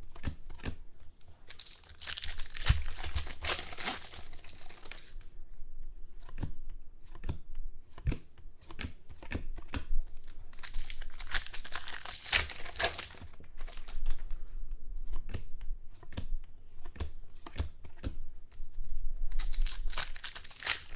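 Packaging of a sealed box of football trading cards torn open and crinkled by hand in three bouts, with scattered clicks and taps of handling between them.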